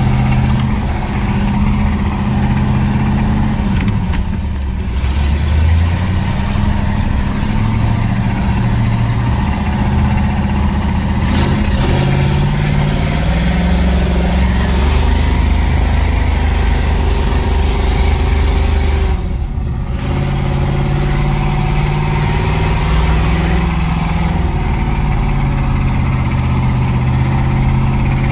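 Engine of a homemade off-road vehicle running under load on a dirt trail, heard from inside the cab. Its pitch steps up and down as the throttle and engine speed change, with two brief drops. The exhaust is one the owner says needs fixing.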